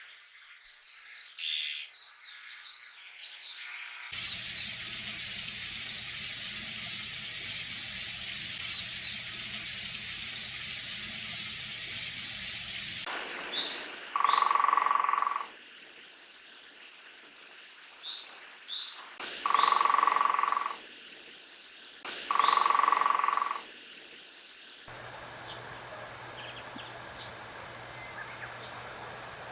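Japanese pygmy woodpecker recordings: short high calls over a steady background hiss, then three loud bursts each about a second and a half long. Near the end a different, quieter recording begins with faint bird calls.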